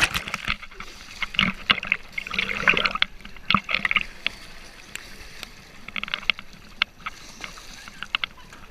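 Water splashing and sloshing in irregular bursts, with sharp knocks and clicks among them, as people move through the sea water.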